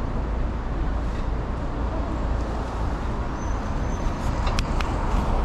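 City street ambience: steady traffic noise. A few sharp clicks near the end come from a hand handling the camera.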